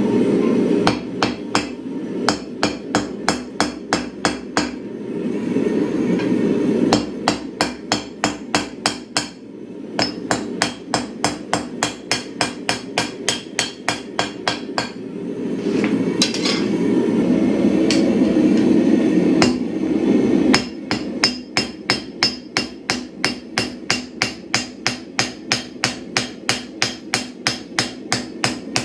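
Hand hammer striking red-hot steel on an anvil, drawing out a knife blade, in steady runs of about two to three blows a second broken by short pauses. A steady low rushing noise sits underneath and is most noticeable in the pauses.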